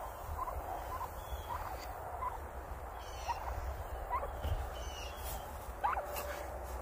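Domestic turkey hen making a string of short, soft chirps, about one a second, with one slightly longer rising note near the end.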